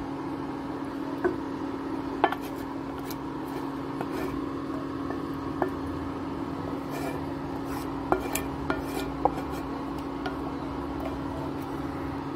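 A wooden spatula scraping thick masala out of a metal pan onto rice in a steel pot, with scattered clicks and knocks of the spatula against the pan, several close together about eight to nine seconds in. A steady low hum runs underneath.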